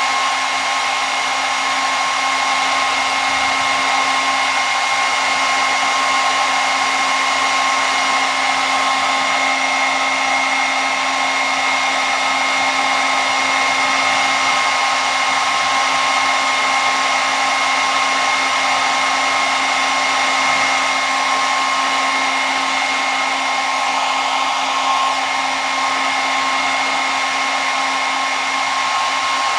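Hair dryer running steadily: a constant rush of blown air with a steady motor whine.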